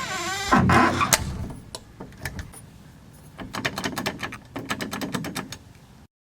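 Unlubricated door hinge creaking and squeaking: a falling squeal at the start, a loud scraping creak about half a second in, then slow runs of rapid creaking clicks near the end before the sound cuts off abruptly.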